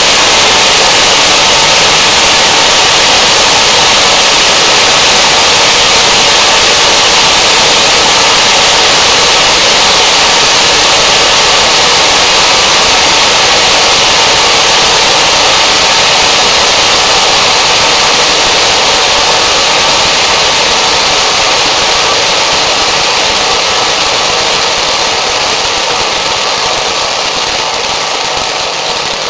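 Large audience applauding: dense, steady clapping that blends into one wash of sound and slowly fades over the last several seconds.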